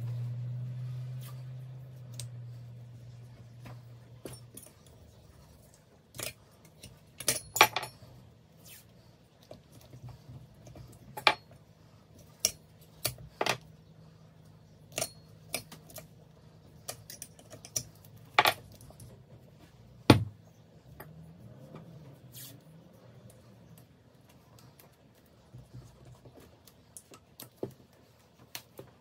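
Metal turbocharger parts and tools being handled on a workbench: scattered clinks, clicks and light knocks, the sharpest about twenty seconds in. A low hum fades out over the first few seconds.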